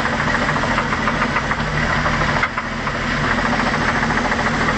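OMC Cobra 4.3 V6 sterndrive engine idling warm with a steady, rapid knock, the knock that the owner takes as a sign the engine is damaged.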